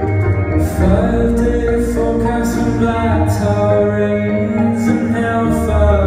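Live band music from violin, electric guitar, bass, piano and drums, with a sung melody over sustained low bass notes and several cymbal hits.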